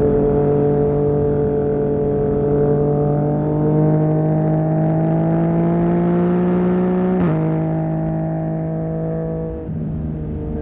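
2020 Yamaha MT-09's inline-three engine through a Barker full-system exhaust, pulling under load with the revs climbing slowly, then a quick upshift about seven seconds in drops the pitch. The engine note dips briefly near the end before picking up again.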